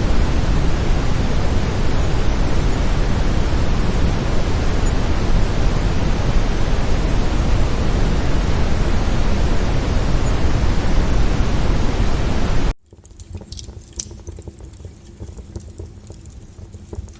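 Steady brown noise that cuts off suddenly about thirteen seconds in, giving way to a much quieter crackling fire with a few sparse pops.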